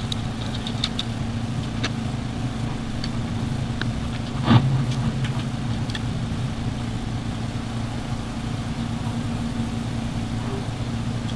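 A steady low mechanical hum throughout, with a few small clicks of metal rifle parts being handled and one louder knock about four and a half seconds in, as an AR-15's fixed-stock parts are fitted.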